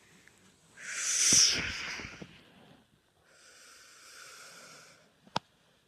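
Breathy hissing made with a person's mouth: a loud, short hiss about a second in, then a quieter, longer one. A single sharp click near the end.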